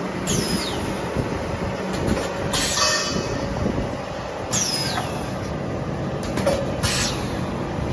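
Automatic wafer stick roll machine running with steady mechanical noise, broken about every two seconds by a short hiss of air that falls in pitch, from its pneumatic air lines.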